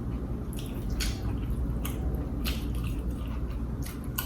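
Close-up chewing of crispy air-fried pork (chicharon bulaklak and lechon kawali): short, sharp crunches at irregular intervals, over a steady low hum.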